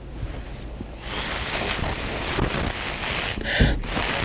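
Small pocket spray gun, blown by mouth, hissing as it sprays a fine mist of red liquid. The hiss starts about a second in, stops briefly a little past three seconds, and then starts again.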